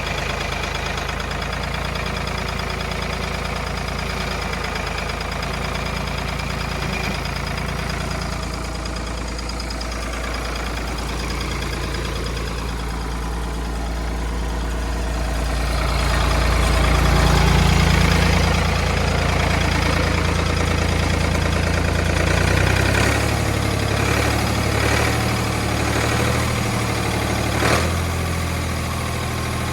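Ford 545A backhoe loader's engine idling, swelling louder about halfway through, then running at a higher, steadier note with scattered knocks and one sharp clank near the end.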